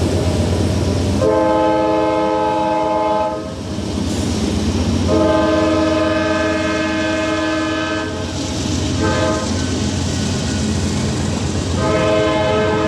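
Nathan K5LA five-chime locomotive air horn sounding the grade-crossing signal: a long blast, a longer second one, a brief short blast, then a final long blast that starts near the end, over a steady train rumble.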